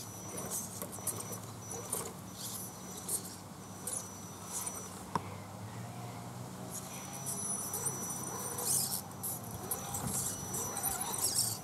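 Small electric RC crawler truck driving slowly over rocks and through grass: a thin, high motor-and-gear whine that starts and stops with the throttle, with tyres rustling and scraping on stones and grass stalks. A sharp click about five seconds in.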